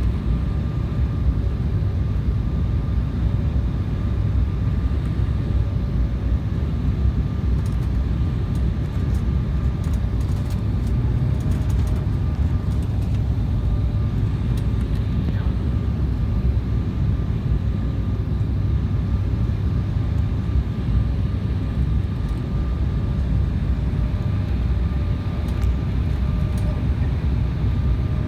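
Steady airliner cabin noise: a low, even rumble from the engines with a faint steady whine over it.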